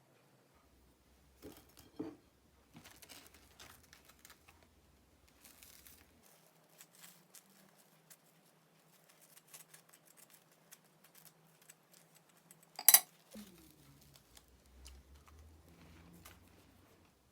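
Small handling sounds: light crinkling, tapping and clicking, with one sharp loud clack about two-thirds of the way through.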